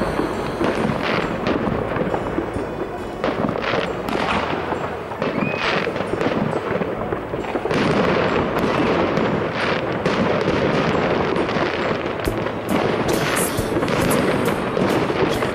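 Fireworks going off from many places at once: a continuous run of bangs and crackling pops that grows denser and louder about eight seconds in.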